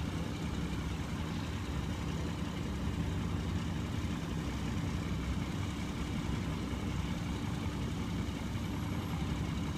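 Heavy diesel truck engine idling steadily with a low, even hum.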